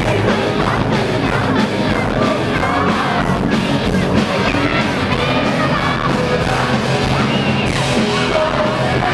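Live rock band playing loud, with electric guitar, keyboards and drums under singing and shouting.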